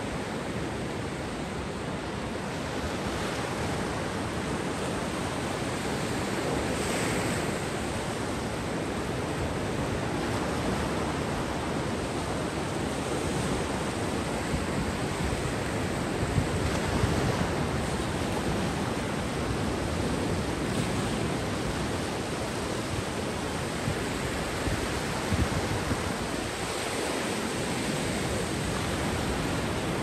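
Sea waves breaking and washing up on the beach: a steady rushing surf that swells a little now and then.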